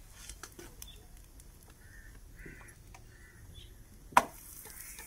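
Light clicks and knocks of utensils being handled by a wood-fired clay stove, with a few short bird calls in the background and one sharp, loud knock about four seconds in.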